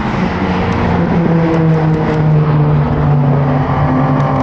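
A pack of track-day cars running past together on the circuit at speed. Several engine notes overlap, each holding fairly steady with slight glides in pitch.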